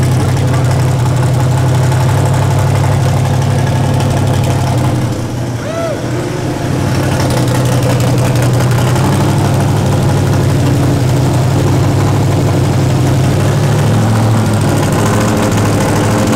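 Twin-turbo 427 cubic-inch Dart LSX V8 idling steadily on an early start-up, its idle fueling not yet dialed in. The level dips briefly about five seconds in.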